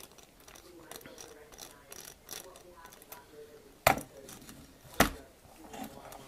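Handling noise of a small homemade metal model chassis with rubber tyres: light clicks and rattles as it is turned in the hands, then two sharp knocks about a second apart a little past halfway as it is set down on a wooden workbench.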